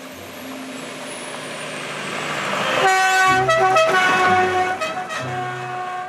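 Fire engine driving past on a gravel forest track: engine and tyre noise swelling as it approaches, loudest as it passes about three seconds in, then easing as it drives away.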